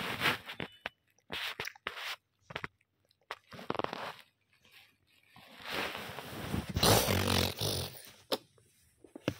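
Blanket fabric rustling and scraping close against a phone's microphone, in irregular bursts with a longer spell of rustling about five to eight seconds in.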